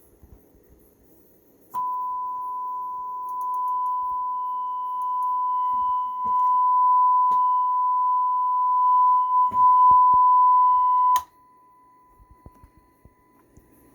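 Steady 1 kHz sine-wave test tone from the Marantz 2500 receiver under power testing after its recap. It starts suddenly about two seconds in, gets louder in a few steps, and cuts off abruptly around eleven seconds, leaving only a faint trace of the tone, with a few soft clicks.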